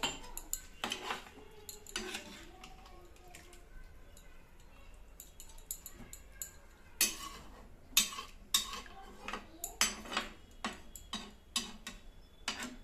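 Kitchen utensils clinking and knocking against each other at irregular intervals, with sharp clinks bunching up in the second half.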